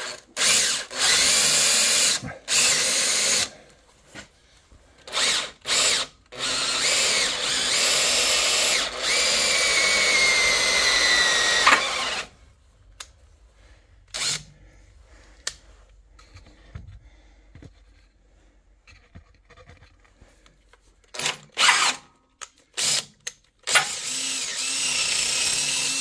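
Cordless drill running a larger twist bit through the steel side panel of a mini skid steer, opening up a pilot hole. It runs in several short bursts, then one long run of about six seconds with a thin high tone coming in as the bit cuts. After a quieter stretch come a few more short bursts and a final run near the end.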